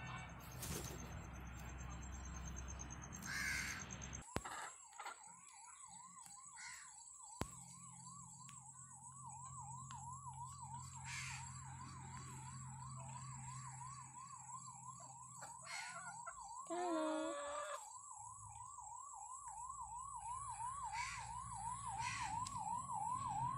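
A siren-like electronic wail that sweeps rapidly up and down, repeating a few times a second, begins about four seconds in and continues. About two-thirds of the way through, a house crow gives a single short caw over it.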